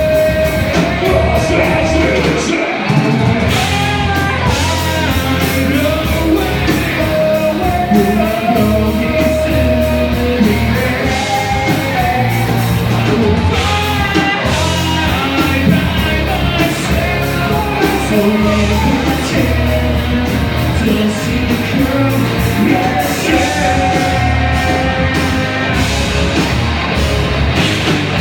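Live rock band playing loud and steady, with drums, bass and guitar under sung and partly shouted vocals.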